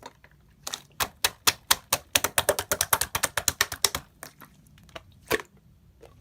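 Clear slime being pressed and worked by hand, giving a quick run of sharp clicks and pops, densest in the middle and thinning toward the end, with one louder pop about five seconds in.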